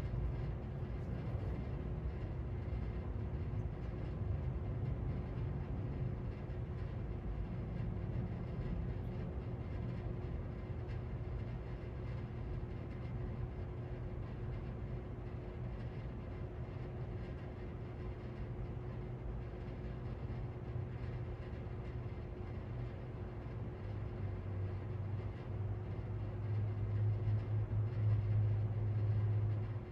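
SMC Rivera ceiling fan running on high speed: a steady low motor hum with a thin higher tone over an even rush of air, the hum growing louder over the last few seconds.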